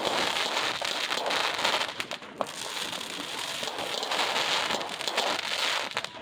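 Fireworks crackling: a dense, rapid stream of small pops and snaps that eases a little about two and a half seconds in, then stops abruptly.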